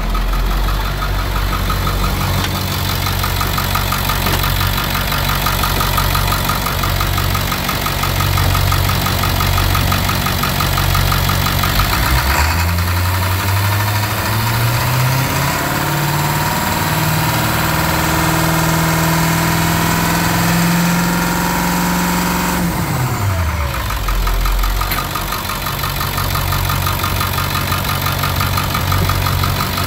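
2001 International T444E 7.3 L V8 turbodiesel running: it idles steadily, is revved up about twelve seconds in, held at higher speed for several seconds, then falls quickly back to idle about twenty-three seconds in.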